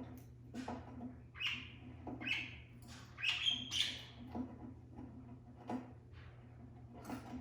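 Caged budgerigars chirping and chattering in short, irregular calls, about two a second, over a faint steady low hum.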